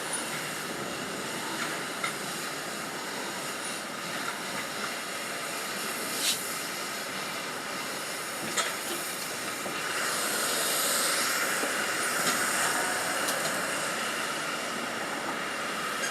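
Shipyard work noise: a steady industrial din with scattered sharp knocks, the loudest about six seconds in, and a hiss that swells for a few seconds past the middle.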